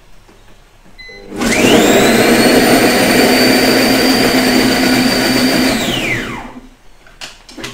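Electric blender blitzing onions and chillies into a paste: the motor spins up about a second in, runs at a steady high whine for about four seconds, then winds down. A few short clicks follow near the end.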